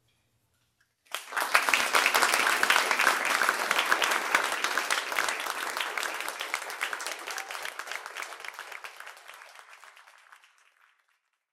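Audience applause, breaking out suddenly about a second in as a dense patter of many hands clapping, then dying away gradually until it is gone shortly before the end.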